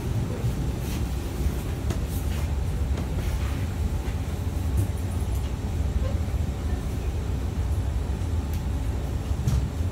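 Steady low rumble inside a Kawasaki Heavy Industries C151 metro train car, with a few faint clicks and rattles.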